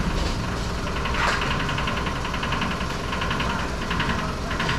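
Low steady rumble of an idling vehicle engine, with a rapid rattling tick that comes and goes from about a second in until near the end.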